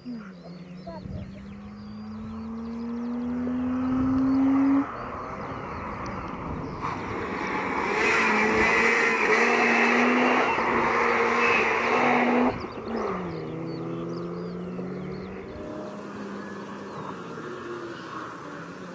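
Naturally aspirated 13B twin-rotor Wankel engine of a 1986 Mazda RX-7 FC under hard acceleration: its pitch rises for about five seconds and cuts off, then the car runs loud and close for about five seconds with its pitch stepping, before easing off and fading away.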